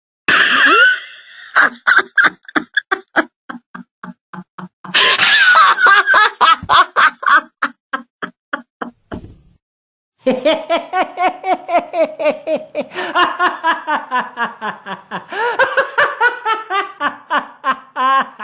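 A man laughing in three separate bursts, each a run of rapid ha-ha-ha pulses, with short silences near the fifth and tenth seconds. The last burst is the longest and its pitch slowly falls.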